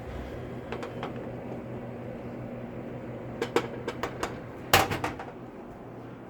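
Microwave oven running with a steady hum. A few sharp clicks come about three and a half seconds in, then a louder quick burst of clicks a second later.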